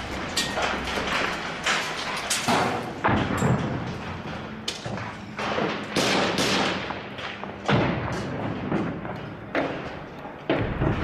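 Combat sounds of gunfire and explosions: a series of sharp bangs and heavier blasts at uneven intervals, several of them loud.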